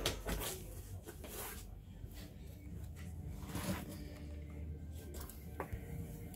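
Cardboard box and packaging being handled during unpacking: scattered short rustles and scrapes.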